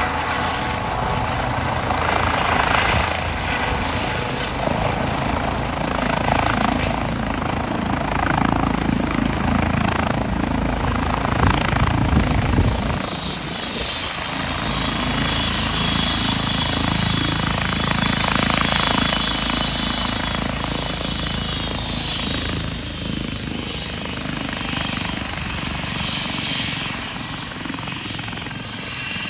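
EC135 air-ambulance helicopter hovering and setting down on its skids, with a heavy rotor beat. About halfway through the beat drops away and a higher turbine whine comes forward. This is the sign that the pilot has flattened the main rotor blade pitch after touchdown to eliminate lift.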